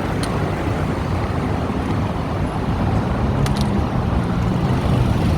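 Steady road traffic noise: cars and other motor vehicles running along a busy road, with a low engine hum that grows slightly louder toward the end.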